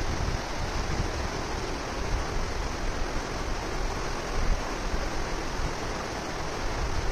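Steady rush of a river in spate running over rocks, with wind rumbling on the microphone.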